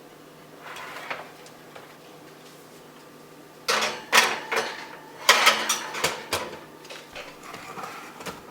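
Kitchenware clattering: a quick run of sharp clicks and knocks, like pans and utensils being handled, starting a little past the middle and lasting about four seconds.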